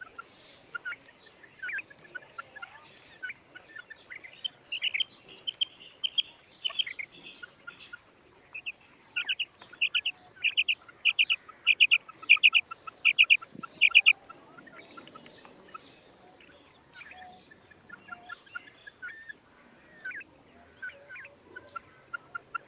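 Female common quail calling: short, high call notes repeated over and over. Near the middle comes a run of about ten loud notes, roughly two a second, with softer, lower notes repeating quickly throughout.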